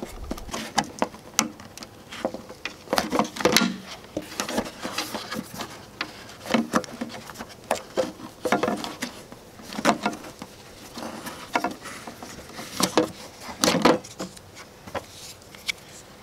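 Rubber filler-neck seal on a Jeep Wrangler JK fuel filler housing being worked loose and pulled off by hand: irregular rubbing, scraping and small clicks of rubber against plastic.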